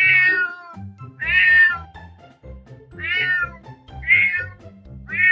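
A cat meowing five times, about a second apart, each call sliding slightly down in pitch, over background music.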